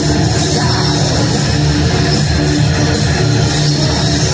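Loud live industrial rock music played by a band: guitar over heavy, dense bass, continuous and steady in level.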